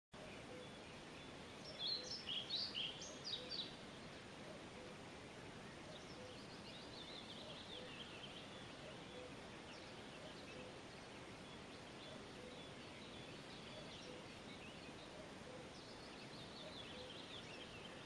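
Songbirds singing in the dawn chorus: a burst of sharp, high chirps about two seconds in, then a high trill falling in pitch, heard twice. A soft low note repeats underneath, over faint steady background noise.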